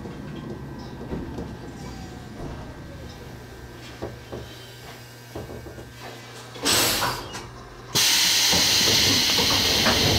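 Gakunan Railway electric train standing at the platform: a steady low hum, then a short loud blast of compressed air about seven seconds in and, a second later, a loud sustained air hiss from its pneumatic system.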